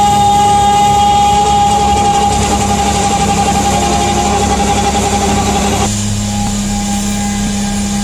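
Caterpillar wheel loader with a Contant snowblower attachment working a snowbank: a loud, steady engine and blower drone with a high whine over a rushing noise as the auger and impeller throw snow. About six seconds in the sound changes abruptly to a slightly quieter, more distant blower drone.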